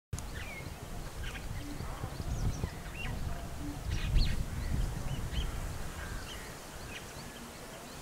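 Outdoor ambience of small birds chirping in many short calls, over an uneven low rumble.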